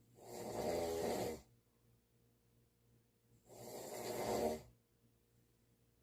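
Snoring: two long snores, each about a second long and about three seconds apart, with quiet breathing pauses between them.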